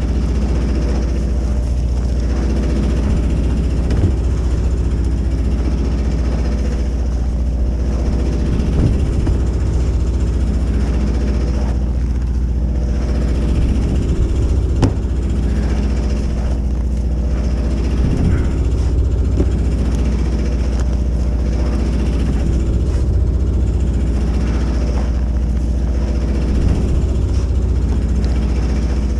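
An engine running steadily with a deep, even rumble, with a few light knocks now and then.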